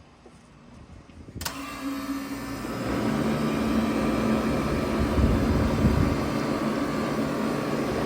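A 3-ton Bard wall-hung heat pump starting up in heat mode: a sharp click about a second and a half in, then a hum and air rush that build over the next second or so and settle into steady running.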